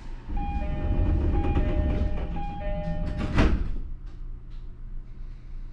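Door-closing chime of a JR E231 series commuter car, a high-low two-note tone sounding three times, while the sliding doors rumble shut. They close with a loud thud about three and a half seconds in.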